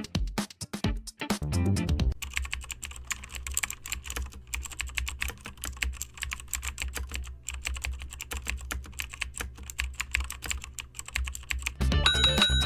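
Typing on a computer keyboard: a rapid, uneven stream of key clicks, starting about two seconds in and stopping shortly before the end.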